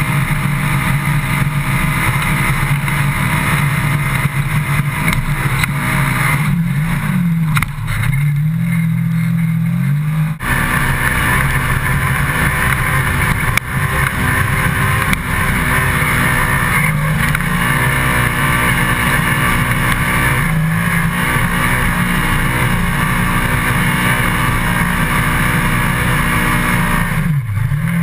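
Polaris RZR XP 900 side-by-side's twin-cylinder engine running hard on the trail; its note drops and climbs back up several times as the throttle is eased and reapplied.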